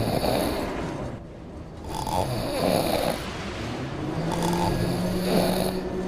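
Snoring, in slow repeated breaths, with a steady low hum coming in about four seconds in.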